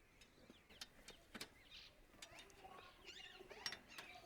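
Near silence, with a few faint sharp clicks and faint chirps of birds in the background.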